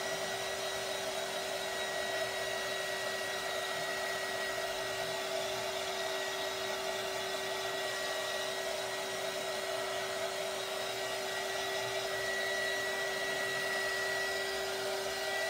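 Handheld craft heat tool blowing hot air steadily, a rush of air with a steady motor whine, drying texture paste on a paper page.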